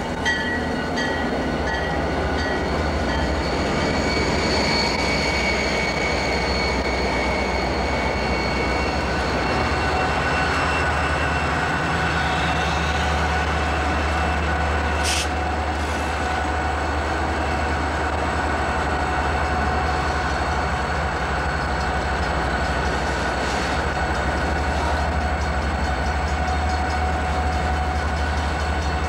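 Santa Fe diesel-electric freight locomotives and train cars rolling past close by, with a steady deep engine hum, continuous rumble and steady high-pitched wheel squeal. A single sharp click about halfway through.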